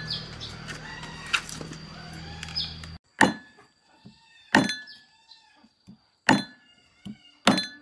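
A cleaver chopping through an eel on a thick wooden chopping block. After about three seconds of low background noise, it lands four heavy, sharp chops about a second and a half apart, with a few lighter knocks between them.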